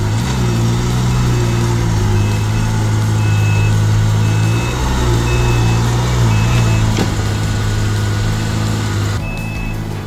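Can-Am Maverick R side-by-side engine running at low speed, with a short electronic warning beep repeating about once a second.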